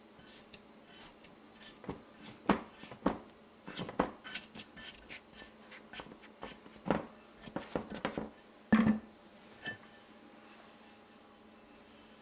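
Rubber spatula scraping and knocking against the rim of a mixing bowl as it is run around the edge to loosen risen bread dough. A scatter of light clicks and scrapes, with the loudest knock about nine seconds in.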